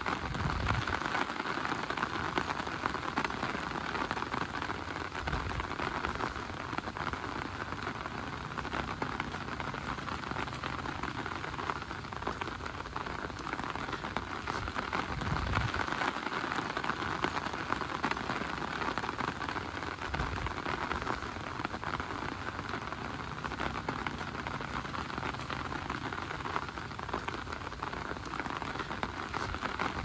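Steady heavy rain falling on an umbrella, with a few dull low thumps spaced through it.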